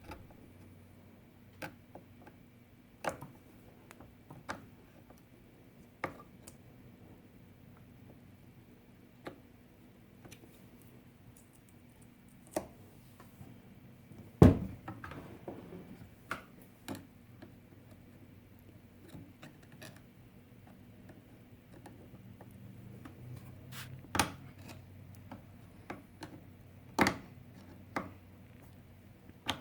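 Scattered clicks and knocks of a screwdriver and metal parts being handled on a chainsaw while its chain is tensioned, spaced a second or more apart, with one louder knock about halfway through.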